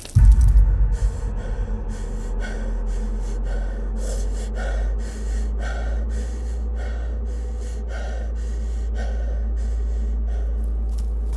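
A man panting hard and fast while running, about two short breaths a second, over a steady deep drone. A deep boom sounds right at the start.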